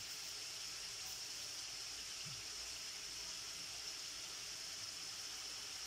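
Pork steak slices simmering in soy-calamansi sauce in a steel wok: a steady bubbling sizzle.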